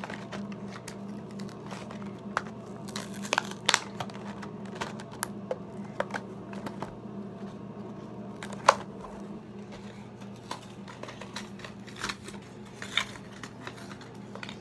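Cardboard and plastic toy packaging being torn and crinkled open by hand: a string of irregular crackles, rips and clicks, the sharpest about nine seconds in, over a steady low hum.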